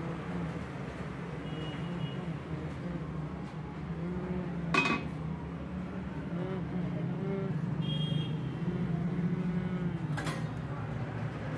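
Stainless-steel funnel clinking as it is set down on a metal base about five seconds in, with a second sharp click near the end, over a steady low background hum.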